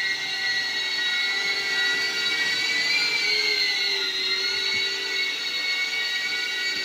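Happymodel Cine8 cinewhoop drone flying on Gemfan D51 five-blade ducted propellers: a steady, high whine of the motors and props, rising slightly in pitch about three seconds in and dipping back about a second later.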